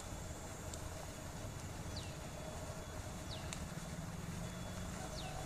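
A bird gives short falling whistle notes every second or so, three times, over a steady low rumble of outdoor background.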